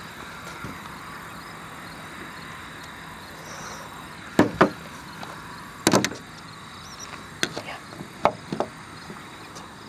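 A few sharp knocks and clicks: a pair about four and a half seconds in, a louder one around six seconds, and a few smaller ones later. They come from a plastic tackle box and its gear being handled on a wooden picnic table.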